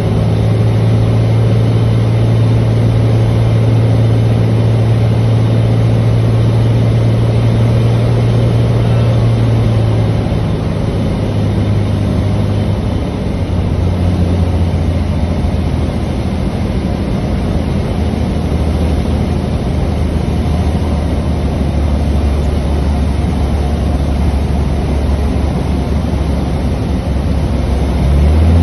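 Cessna 206's six-cylinder piston engine and propeller droning in the cabin on final approach to a dirt strip. The low tone drops in steps about a third and halfway through as power comes back for landing, and picks up again near the end.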